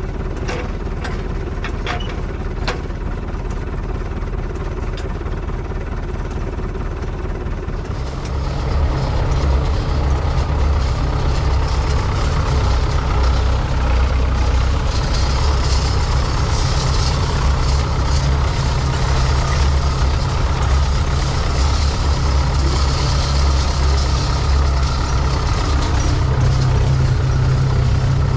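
Farm tractor engine running steadily, then throttled up about eight seconds in and running louder from then on.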